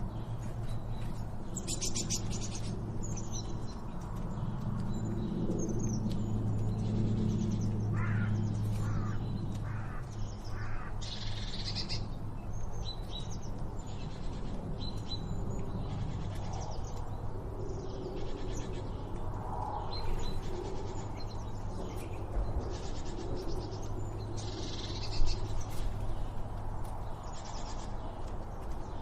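Several wild birds calling: a run of short high chirps and whistles with some harsher, broader calls mixed in, over a steady low rumble.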